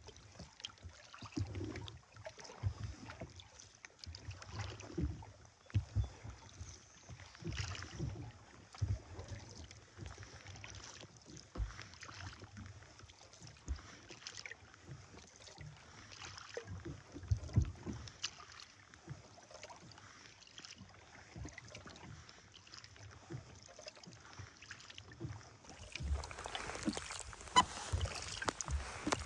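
Kayak being paddled with a wooden Greenland paddle: soft water splashes and low thuds from the strokes, roughly one every second or so. Near the end the water and stroke sounds grow louder and closer.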